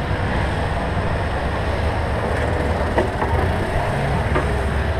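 Rotax Max 125 cc single-cylinder two-stroke kart engine idling steadily with a low rumble, with one light knock about three seconds in.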